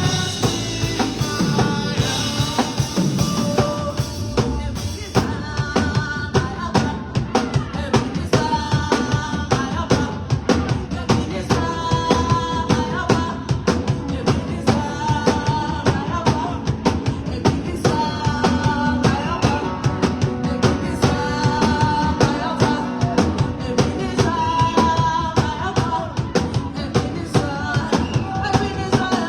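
Band music with a drum kit keeping a steady beat under a melody, with singing.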